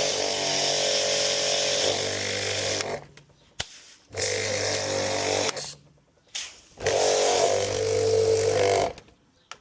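Kärcher K-series electric pressure washer running in three separate bursts, its motor and pump humming under a hiss of water spray, stopping between bursts with short blips in the gaps. The water tap is not fully open, which the owner says this machine needs in order to work properly.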